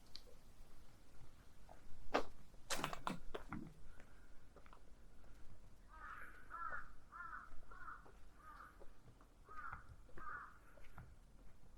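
A crow cawing: a run of about six caws roughly half a second apart, then two more after a short pause. Earlier, a few sharp knocks or crackles close to the microphone are the loudest sounds.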